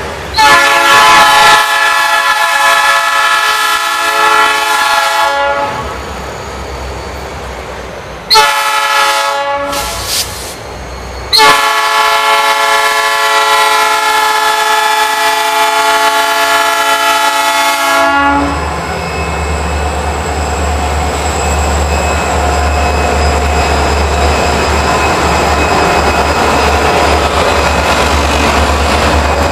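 Diesel freight locomotive sounding its air horn in three blasts, long, short, then long, as it nears a level crossing. After the last blast, a steady deep engine rumble as the locomotive passes close.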